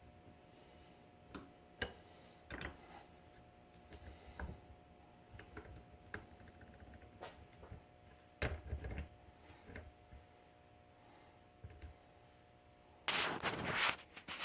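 Scattered light clicks and knocks of tools and parts being handled and set in place, with a heavier knock about eight seconds in and a loud scraping rustle about a second before the end.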